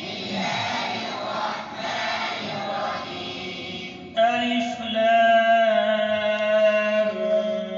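Male voice reciting the Quran in melodic tajweed style. A rough, noisy stretch opens it, then from about four seconds in the voice holds one long, steady note.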